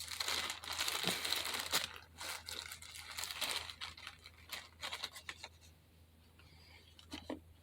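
Crinkly wrapping material being crumpled and handled by hand, a dense rustle with many small crackles for about five seconds, then a brief tap near the end.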